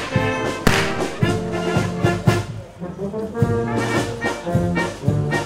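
Instrumental Alpine folk music: sustained melody notes over a regular, evenly spaced beat, with a brief drop in loudness about halfway through.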